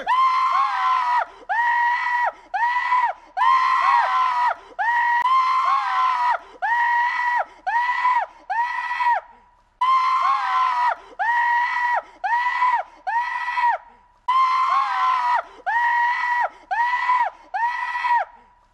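Repeated high-pitched screaming, short even-pitched cries about two a second, in three runs broken by brief pauses.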